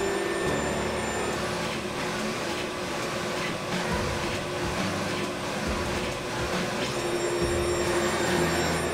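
Brother GTX direct-to-garment printer printing: its print-head carriage motor runs back and forth in passes that start and stop every second or two, over a steady hum.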